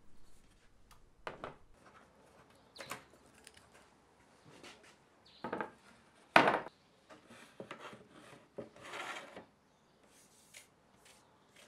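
Aluminium Milescraft track saw guide rails being handled and slid on a plywood workbench: scattered knocks and scrapes, the loudest knock about six seconds in, and a longer scrape around nine seconds.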